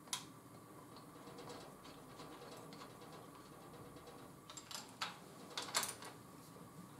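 Faint clicks and light taps of metal parts being handled as the aluminium upper control arms and their bolts are fitted to an Audi A4 B5 front strut's top mount, one just after the start and a few more over the last couple of seconds.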